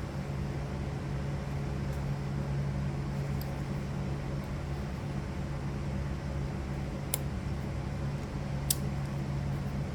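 Steady low fan-like hum, with two sharp metallic clicks about a second and a half apart near the end, from small parts and tools being handled while a pinball score reel is reassembled.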